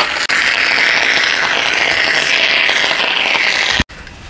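Heavy rain falling: a loud, steady hiss that stops abruptly near the end.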